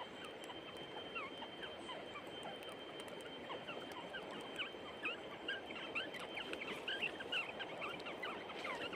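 River water flowing and gurgling over stones, a steady rush dotted with many short bubbling chirps that grow busier in the second half. A thin, steady high tone runs under it.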